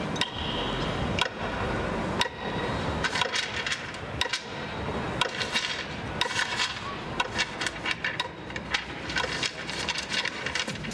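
Light-show soundtrack over outdoor loudspeakers: single percussive knocks about once a second, then from about three seconds in a quickening stream of sharp clicks and taps, over a steady background of city noise.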